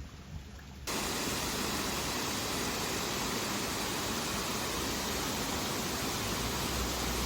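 Steady rushing water, an even hiss with no rhythm or tones, that starts abruptly about a second in at a cut.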